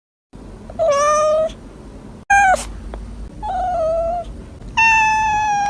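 A cat meowing four times: separate drawn-out calls, the last one the longest and held at a steady pitch.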